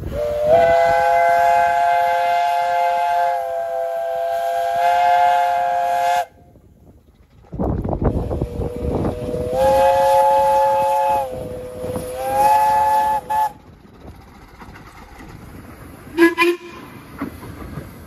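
Steam locomotive chime whistle sounding a chord of several notes in a long blast of about six seconds. After a break and a loud rush of noise, chime whistles sound again in two blasts with a lower note between them, and a brief toot comes near the end.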